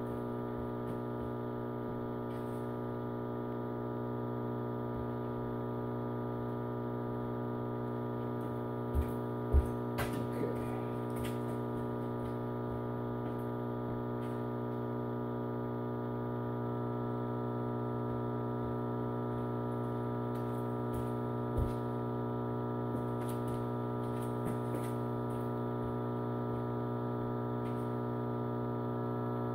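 PowerJack 15000 W split-phase inverter humming steadily under a heavy load of about 15 to 18 amps at 242 volts: a low mains-frequency hum with many overtones. A few light knocks come about nine, ten and twenty-two seconds in.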